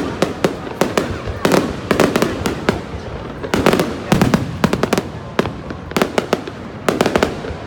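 Aerial fireworks bursting overhead: rapid clusters of sharp bangs and crackles, one after another.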